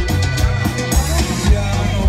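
Live band playing dance music, with a steady drum beat about twice a second over a bass line.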